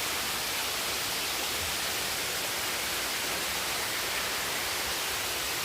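Waterfall water rushing: a steady, even hiss of falling water that does not change.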